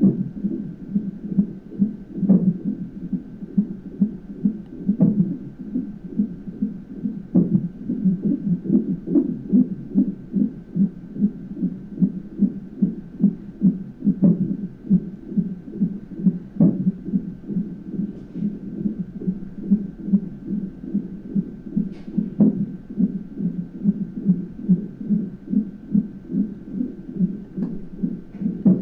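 Fetal Doppler heart monitor relaying an unborn baby's fast heartbeat as a steady whooshing pulse of about two beats a second. Sharper knocks cut through every few seconds: the baby's hiccups.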